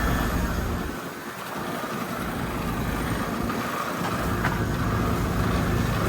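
Outdoor heat pump units running with a steady mechanical hum. A low rumble fades about a second in and builds back after about four seconds.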